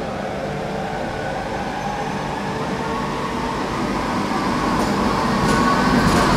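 SŽ class 310 Pendolino electric tilting train approaching along the platform and running past, growing steadily louder as it comes, with a steady hum over the rumble and a few sharp clicks near the end.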